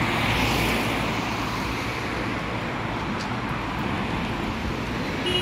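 Road traffic: cars passing close by, their engine and tyre noise swelling as one goes past in the first second, then a steady flow.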